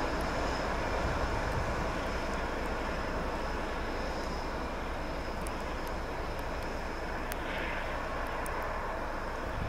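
CN diesel freight locomotive running steadily as it approaches, a constant low engine rumble with a faint high whine over it and a few light ticks in the second half.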